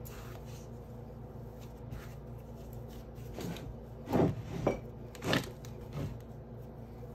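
Hands kneading and pressing a ball of shortcake dough on a wooden cutting board: quiet rubbing, then a handful of dull thumps against the board about four to six seconds in, over a steady low hum.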